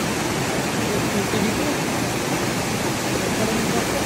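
Water pouring over a small stepped weir into a shallow pool: a steady rushing.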